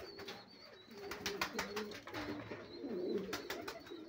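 Domestic Sefiannos pigeons cooing: low, wavering coos that overlap one another throughout. Clusters of sharp clicks come about a second in and again near the end.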